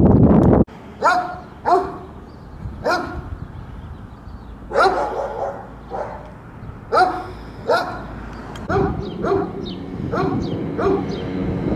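A dog barking repeatedly: about a dozen short, sharp barks at uneven intervals, some in quick pairs. It opens with a loud rush of noise that cuts off abruptly in the first second.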